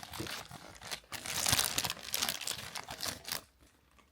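Plastic packaging crinkling and rustling in irregular bursts as it is handled and pulled open. It stops about three and a half seconds in.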